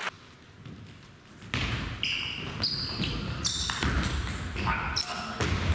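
Table tennis rally: the celluloid ball clicking off rackets and bouncing on the table in quick succession, starting about a second and a half in after a short quiet spell.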